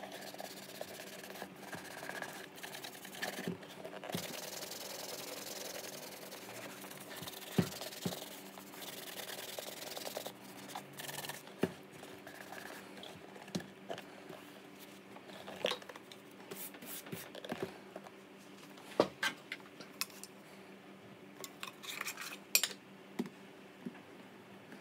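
Cloth rubbing and buffing over a leather boot, a continuous scratchy swishing, broken by several sharp knocks and clicks as the boots are handled and set down on the desk.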